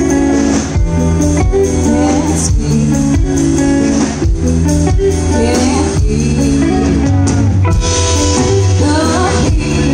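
A live rock band playing loudly: electric bass, electric guitars and a drum kit, with a woman's voice coming in singing near the end.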